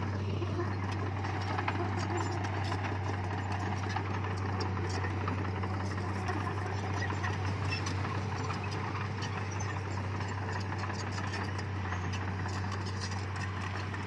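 Diesel engine of earthmoving machinery running steadily, a low drone with light scattered rattles over it.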